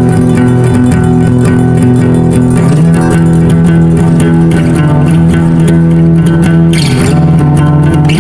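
Background music: a guitar-led instrumental track with bass, the chords changing twice.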